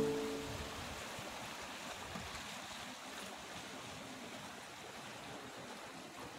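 Faint, steady wash of calm sea water against a rocky shore. A last held music note fades out in the first half second.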